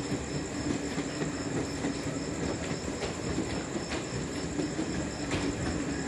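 A rake of passenger coaches rolling past on the rails, a steady rumble with a few sharp wheel clicks over the rail joints.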